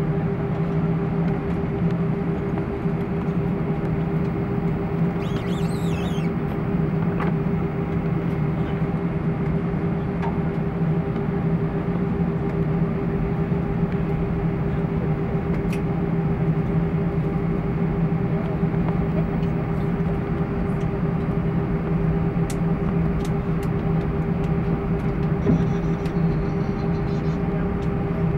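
Airbus A320 cabin noise while taxiing: the jet engines running at taxi idle make a steady drone, with a constant low hum and a higher steady tone.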